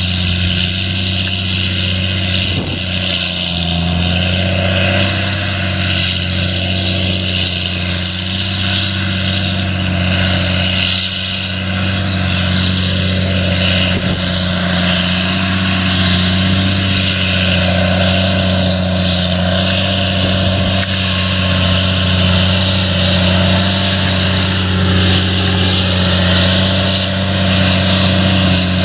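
A steady engine drone with a constant low hum that holds unchanged throughout.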